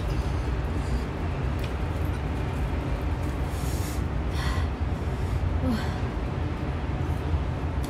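A steady low rumble of background noise, with a few short crisp sounds around the middle as pieces of rujak fruit, young mango and apple in sambal, are taken from a stone mortar and bitten and chewed.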